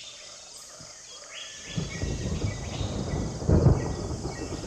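Night-time jungle ambience: insects chirring steadily with scattered short bird calls. From about two seconds in, a loud low rumble comes in, swelling most about three and a half seconds in.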